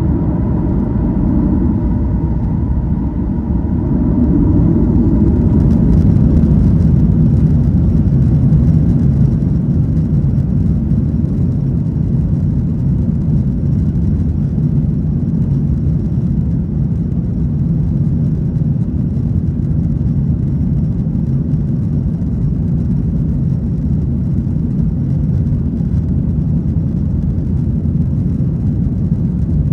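Boeing 737-900ER's CFM56-7B jet engines at high thrust during takeoff, heard inside the rear cabin as a loud, steady low roar. A light whine at the start fades, and the roar swells about five seconds in, then holds.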